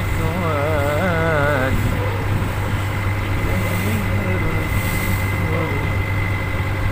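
A fishing boat's inboard engine running steadily with a low, even drone, over the rush of water along the hull. A singing voice with a wavering pitch carries over it for about the first second and a half.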